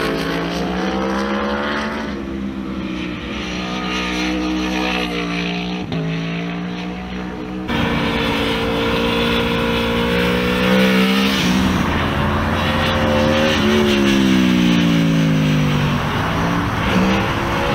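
Aprilia Tuono V4 R's V4 engine at speed on track, its pitch rising and falling with the throttle through the gears. About fourteen seconds in it runs down in a long falling glide as the bike slows, then picks up again near the end.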